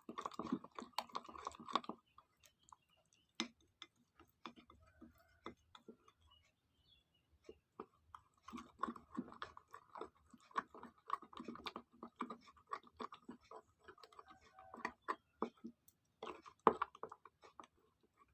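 Spoon stirring a mixture of powdered ginger, turmeric, cinnamon and lemon juice in a bowl: irregular clicks and short scrapes of the spoon against the bowl. There is a lull of a few seconds after about two seconds in, then steady stirring, with a louder burst near the end.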